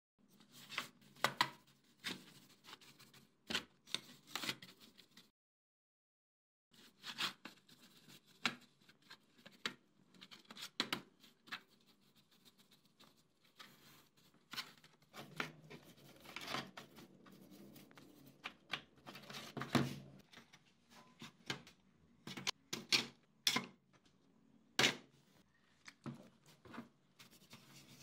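A paintbrush scrubbing and dabbing wet paste over rusty sheet-metal fan blades in a steel tray: irregular scratchy strokes with sharp taps against the metal. There is a short dead break a little past five seconds in.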